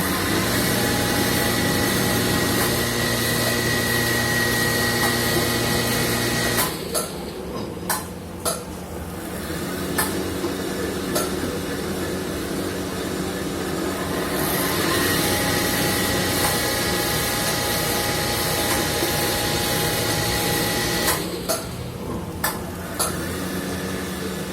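CNC machine running through a machining cycle: a steady mechanical run with a whine. It breaks off twice into a quieter spell of sharp clicks and knocks, then runs steady again.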